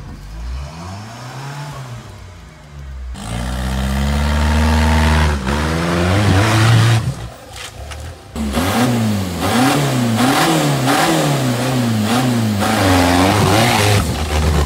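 An off-road competition vehicle's engine revving hard, its pitch climbing and dropping. There is a long high rev a few seconds in, then from about halfway the revs rise and fall rapidly, about one and a half times a second, as the throttle is worked.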